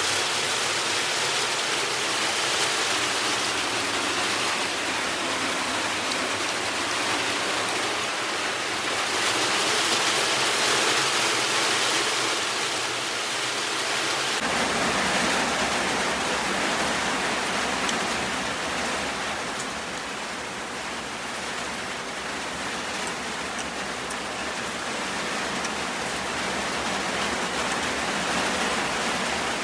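Heavy rain falling: a steady, even hiss that fills the sound, with a slight change in its low rumble about halfway through.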